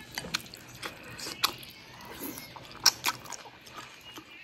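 Close-up eating sounds of a mouthful of noodles being chewed, with irregular sharp wet mouth clicks and smacks, the loudest about a second and a half and about three seconds in.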